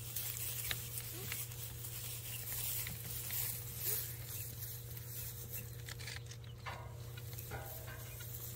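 Goat kids suckling at a doe's udder, with small wet suckling noises and straw rustling under their feet, over a steady low hum.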